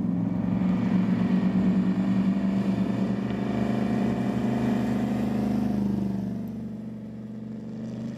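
Miata's newly fitted 331-cubic-inch Ford V8 running on its first drive, a steady engine note that grows fainter about six seconds in as the car moves off into the distance.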